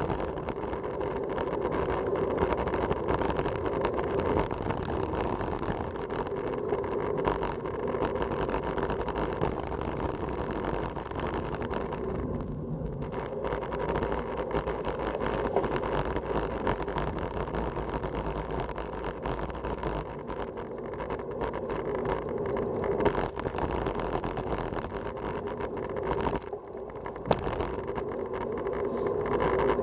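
Steady rushing wind noise on a bicycle-mounted camera's microphone as a road bike descends at speed.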